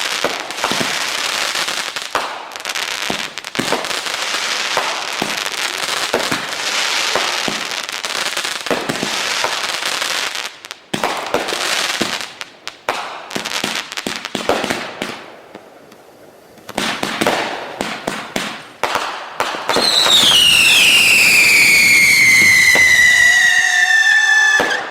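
Consumer fireworks going off: a rapid, dense run of crackling pops and bangs for about fifteen seconds, a short lull, more crackling, then a loud whistle that falls in pitch for about five seconds and cuts off suddenly near the end.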